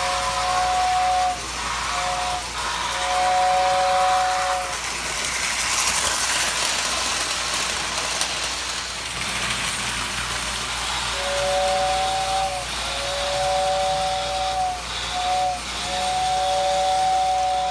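Lionel postwar whistle tender blowing its two-note steam-whistle sound in short and long blasts: three blasts, then a gap of about six seconds filled with the model train's running noise, then four more blasts, the last one long.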